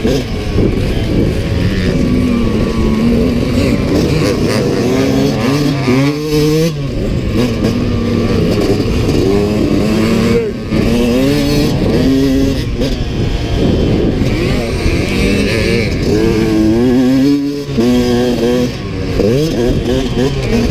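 2022 Yamaha YZ125X's 125cc two-stroke single-cylinder engine being ridden hard, its pitch repeatedly climbing and falling as the throttle is worked. The throttle is shut off sharply about six, ten and seventeen seconds in.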